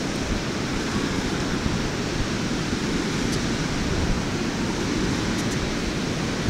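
Wind buffeting the camera microphone, a steady low rushing noise, with surf breaking on the beach underneath it.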